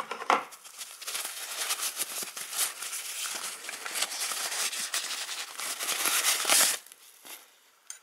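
Soft packaging wrap crinkling and rustling as a case is unwrapped by hand, a dense run of small crackles that stops about seven seconds in.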